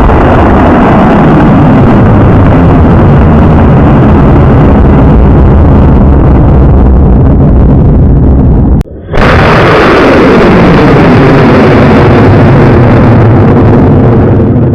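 High-power model rocket motor burning at liftoff, very loud and distorted, with a pitch that falls as the rocket climbs away. It plays twice, with a sudden cut about nine seconds in.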